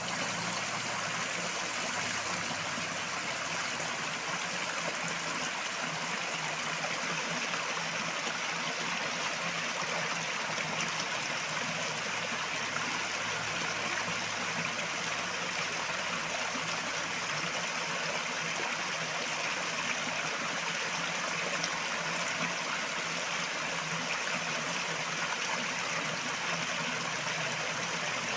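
River water flowing over rocks: a steady, even rush with a fine trickling texture.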